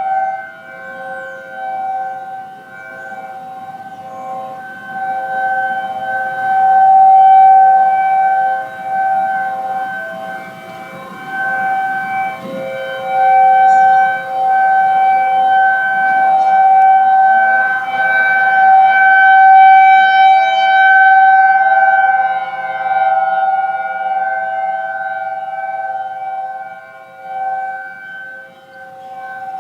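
Three outdoor warning sirens, a Federal Signal Thunderbolt 1003A, a Federal Signal 2001 and an ACA Screamer, sound a steady alert tone together from about a third to half a mile away. Their overlapping tones hold a steady pitch while swelling and fading in loudness as the rotating sirens turn.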